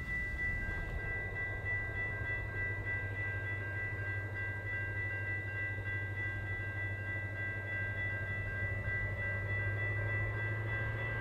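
Diesel train running steadily, its engine a continuous low drone, with a steady high whine alongside.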